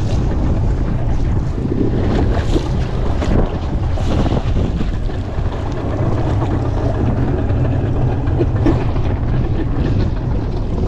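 Wind in a strong breeze, about 20 knots, buffeting the microphone on an open fishing boat at sea, over a steady low rumble.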